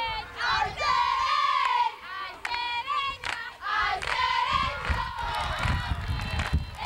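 Football crowd shouting and cheering, many high-pitched young voices yelling over one another, with a couple of sharp clicks in the middle.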